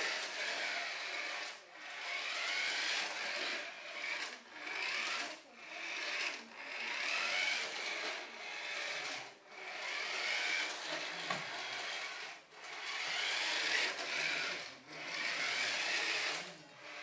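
Toy RC car's electric motor whining in repeated short bursts, the pitch climbing in each as the car speeds up, then dropping out briefly between them as it is driven around in quick spins.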